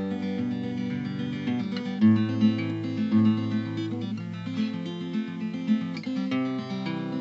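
Acoustic guitar music, a run of chords with notes changing every fraction of a second.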